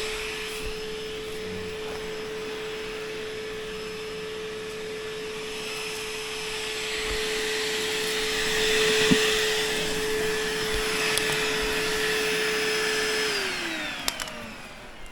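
Vacuum cleaner motor running steadily with a whine and a rush of air, then switched off about two seconds before the end, its pitch falling as it winds down.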